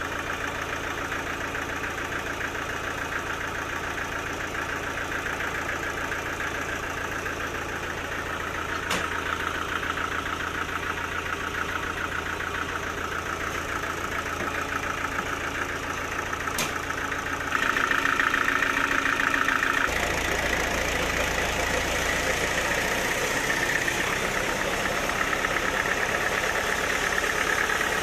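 Sawmill machinery running steadily, with two sharp clicks partway through. About two-thirds of the way in it turns louder and brighter, then shifts again a couple of seconds later.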